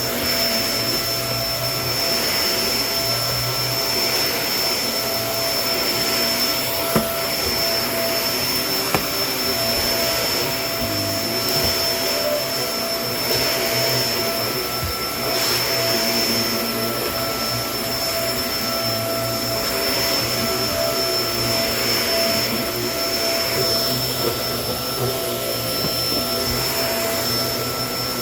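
Kenmore vacuum cleaner running steadily, a rushing airflow with a constant motor whine, swelling and easing slightly every couple of seconds. Two sharp clicks a couple of seconds apart about a quarter of the way in.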